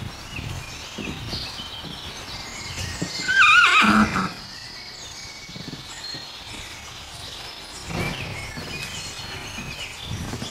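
A Shetland pony whinnies once, a loud wavering call about three and a half seconds in, while ponies' hooves move about on the sandy ground.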